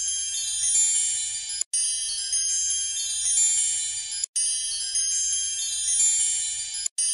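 Tinkling wind-chime-like music loop made of many high, bright ringing tones. It breaks off for an instant and restarts about every two and a half seconds.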